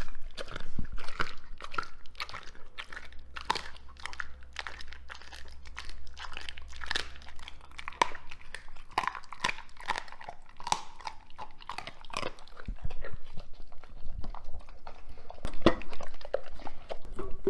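Doberman chewing and crunching food with wet mouth and lip-licking sounds, irregular and close. Near the end it eats from a stainless steel bowl, with a few louder sharp clicks.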